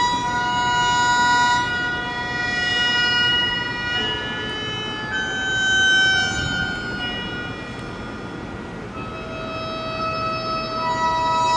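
A wind instrument playing long, held notes that move to a new pitch every second or two, growing softer about two-thirds of the way through and then swelling again near the end.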